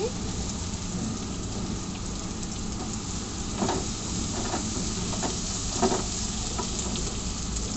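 Ginger-garlic-chilli paste and capsicum sizzling steadily in hot oil in a frying pan, with a few short knocks of a stirring utensil against the pan around the middle.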